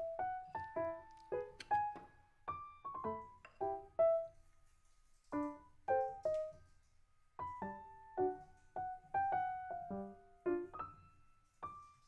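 Background piano music: a light tune of single struck notes that each fade away, with a brief pause about four seconds in.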